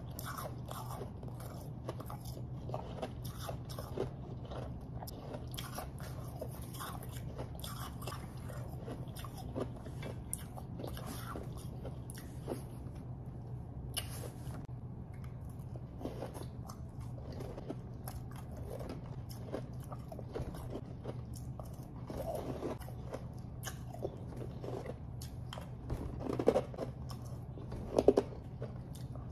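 Close-up crunching and chewing of refrozen powdery snow ice, heard through a clip-on microphone held right at the mouth: a steady run of small crunches, with a few louder, sharper bites near the end.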